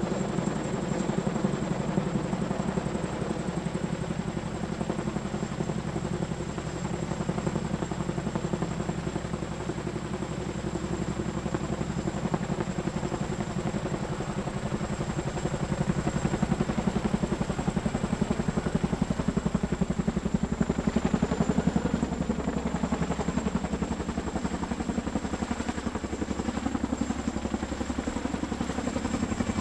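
CH-47 Chinook twin-turbine tandem-rotor helicopter running: a fast, steady rotor beat with a thin high-pitched whine on top, growing a little louder past the middle.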